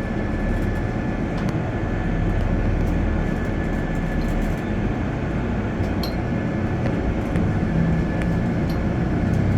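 A city bus running, heard from inside: a steady low rumble of engine and road noise, with a faint constant whine and a few light rattles.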